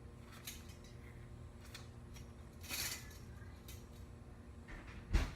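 Metal trampoline parts being handled during assembly: scattered light clinks and a brief scrape, then one sharp, louder knock near the end.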